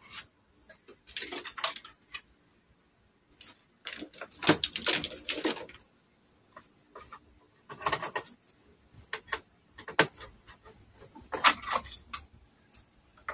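Clicking and rattling of a screwdriver, cable connectors and wiring against a flat-screen TV's sheet-metal rear chassis, in short irregular bursts.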